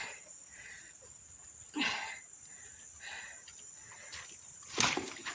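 Steady high-pitched chirring of insects in riverside vegetation, with faint repeated calls under it. A brief sliding sound about two seconds in, and a single sharp knock near the end, the loudest moment.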